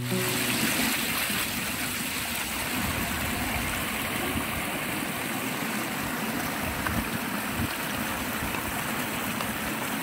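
Shallow water rushing and splashing over rocks in a small cascade, a steady even rush.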